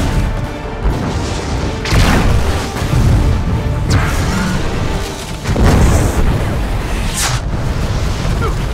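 Explosions tearing through a burning wooden building, with several heavy booms about two, four and six seconds in, over film music.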